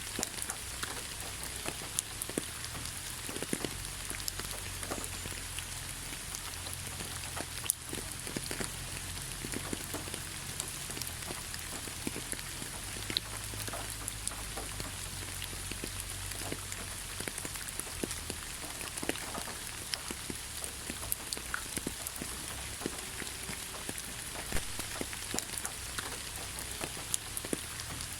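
Steady rain falling, an even hiss with many individual drops ticking sharply among it.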